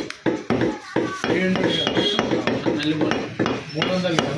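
Butcher's cleaver chopping mutton on a wooden block: a few quick strikes in the first second, a pause while a voice is heard, and chopping starting again at the end.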